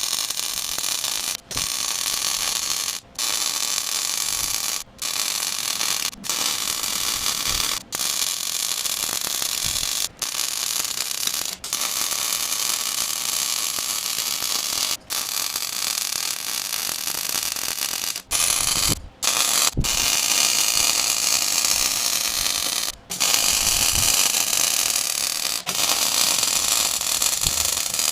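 Electric arc welding a steel hook onto an excavator bucket: a steady, dense hiss, stopped briefly every second or two as the arc is broken and struck again between short weld runs.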